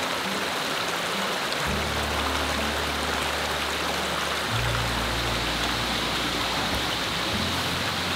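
Rocky brook rushing over stones, a steady wash of running water, under background music whose low held notes change every couple of seconds.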